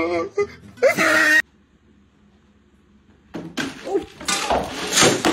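A short loud cry about a second in, then a brief near-silent gap. After that, a scuffle and a loud clattering crash: a container of dry cat food knocked off a shelf by two cats tussling, with kibble scattering across the floor.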